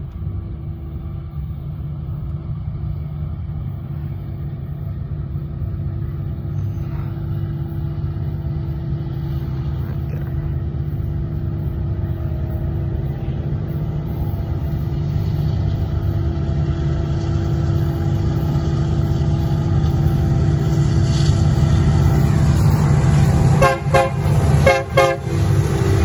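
Union Pacific SD70M diesel locomotive approaching at the head of a freight train: a low rumble that grows steadily louder, then a few short blasts of its air horn near the end.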